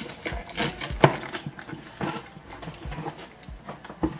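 Cardboard shipping box being opened by hand: scraping and rustling of cardboard and packing tape, with several sharp knocks, the loudest about a second in.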